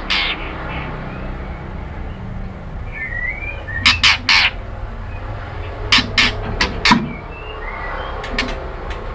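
White-rumped shama giving short, harsh, raspy calls: one at the start, a pair about four seconds in, and three more between six and seven seconds. A few faint thin whistled notes fall in between, over a steady low hum.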